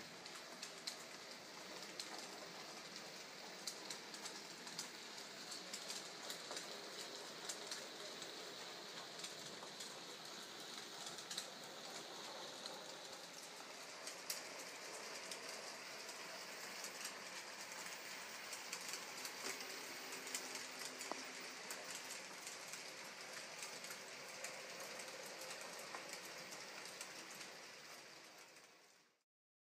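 N gauge model train, the Graham Farish Ivatt '2MT' 2-6-0 on test, running along the layout's track: a steady quiet rolling noise dotted with many small clicks of the wheels over rail joints and pointwork. It fades out near the end.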